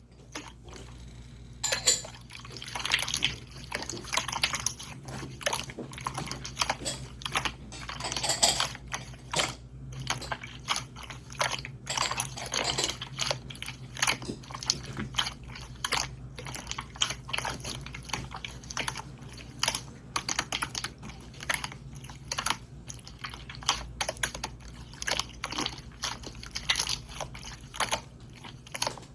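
Water-sound slime being squeezed and kneaded by hand: a continuous, irregular run of wet clicks, pops and squelches.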